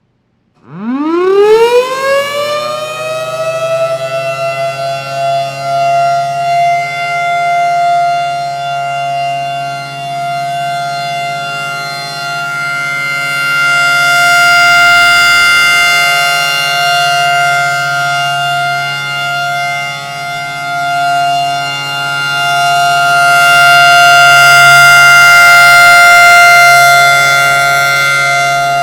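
Federal Signal Thunderbolt outdoor warning siren winding up from a low pitch to a steady high wail within the first few seconds, then holding that tone, loud, with its volume swelling and easing twice. A steady low drone runs beneath the wail.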